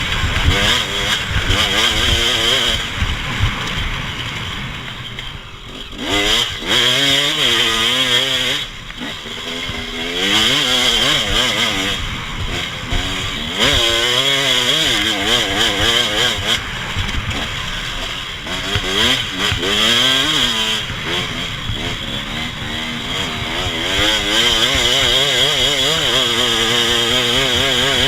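Off-road vehicle engine riding trails: the revs climb and drop over and over as the throttle is worked through the sandy turns, over a steady rush of wind and hiss.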